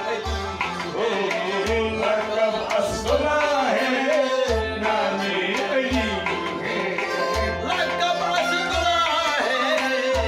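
A man singing a qawwali to his own harmonium, over its steady held notes, with a hand drum giving a deep stroke about every one and a half seconds.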